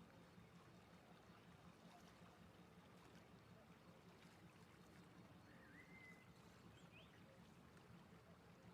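Near silence: faint outdoor background with a steady low hum, and one brief faint whistle-like chirp about six seconds in.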